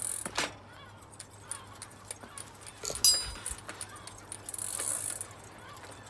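Rear wheel and chain of a 3-speed bicycle with a Sturmey-Archer hub gear running as the cranks are turned to test the gears, with scattered metallic clicks from the drivetrain. The loudest is a sharp, ringing click about three seconds in, and a high whirring hiss comes in near the end.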